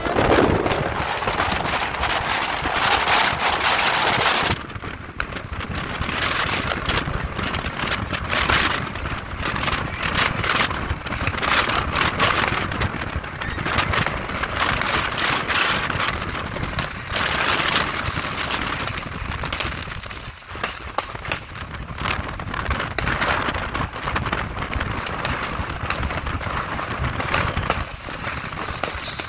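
Road and wind noise of a car driving on a highway, with dense, irregular popping and crackling from fireworks and firecrackers going off all around.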